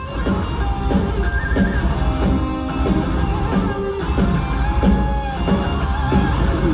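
Metal band playing live without vocals: distorted electric guitars with a wavering lead line over pounding drums and bass, loud and dense throughout.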